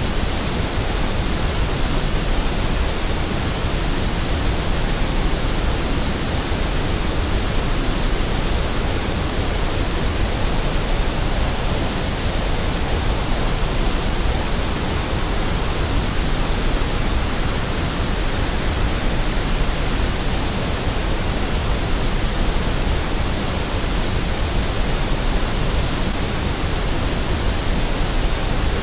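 Continuous white noise: a steady, even hiss across all frequencies, unchanging throughout.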